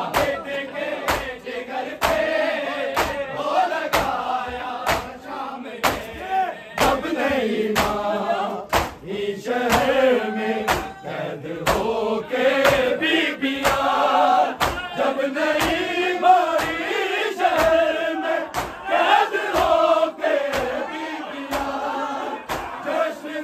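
Group of men chanting an Urdu noha (Shia mourning lament) in unison, with rhythmic matam, hands striking chests together, just under twice a second.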